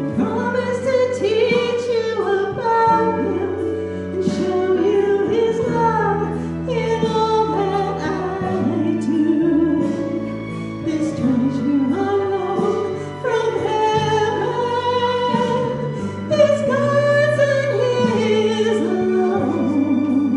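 A woman singing a solo into a handheld microphone over instrumental accompaniment, with vibrato on her held notes.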